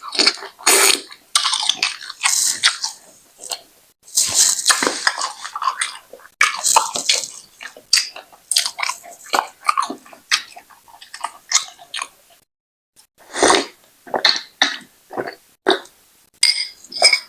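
Close-miked chewing and wet mouth sounds of someone eating brown wheat fufu with ogbono soup, in irregular smacks and clicks with a short pause near the middle.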